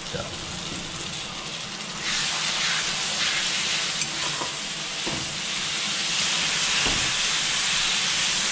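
Onions and spice paste sizzling in hot oil in a wok (kadai). The sizzle grows louder about two seconds in as the wet ground-masala paste is stirred into the oil, with a metal spatula scraping against the pan now and then.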